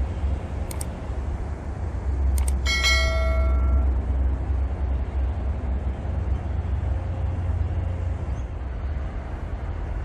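A small bell rings once about three seconds in and fades within a second, over a steady low rumble.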